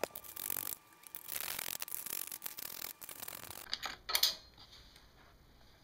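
Socket ratchet with an 8 mm socket clicking as it backs out the screws holding a plastic airbox, with two sharper clacks about four seconds in.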